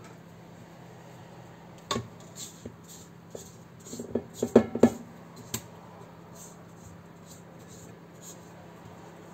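Kitchen handling noises: a single knock about two seconds in, then a quick run of sharp knocks and clatters, and one more shortly after, over a faint steady hum.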